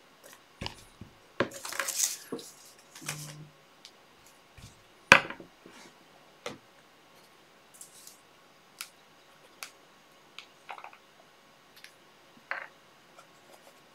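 Handling noises at a worktable: a rustle about two seconds in, then scattered small clicks and taps as small objects are picked up and set down, the sharpest click about five seconds in.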